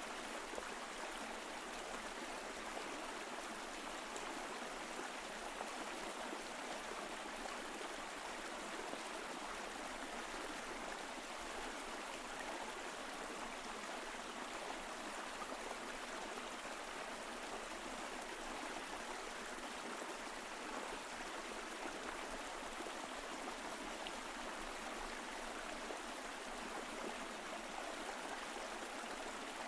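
Mountain stream flowing, an even, steady rush of water with no changes.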